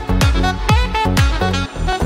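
Background music with a steady beat: a deep kick drum about twice a second under a repeating melody.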